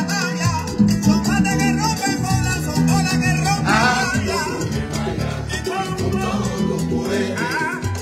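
Salsa song with a steady bass line, band and percussion, and a voice singing over it, heard through a phone's microphone.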